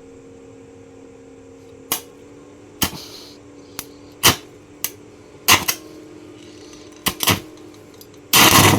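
Stick-welding arc from a Kemppi Minarc 150 inverter welder at its 150 A maximum, with a nail used as the electrode: about eight short, sharp arc-strike crackles, then a sustained arc crackling for about half a second near the end. A steady hum from the machine runs underneath; this full-current test shows the repaired welder working.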